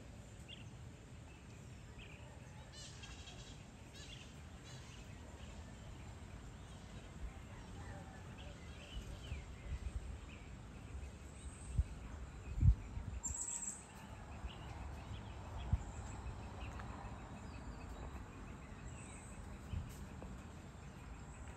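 Birds chirping and calling intermittently at dusk, with a short rapid trill about three seconds in, over a low outdoor background. A few low thumps break in, the loudest about halfway through.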